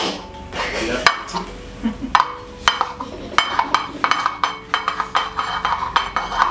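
Plastic bowl knocking and scraping against a metal plate while a mound of stiff maize meal (kawunga) is pressed and shaped, a string of sharp irregular knocks and clicks.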